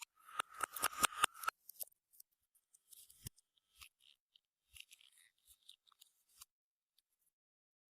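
Clear slime being squeezed and worked by hand, giving a quick run of sharp sticky clicks and pops in the first second and a half, then scattered fainter pops.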